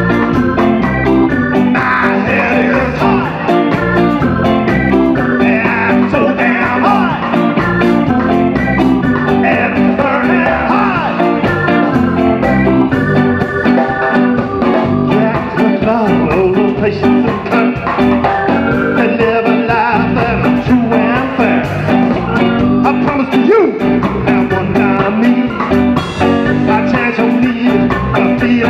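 Live band playing loudly without vocals: saxophone carrying the melody over electric guitar, bass guitar, drums and keyboard.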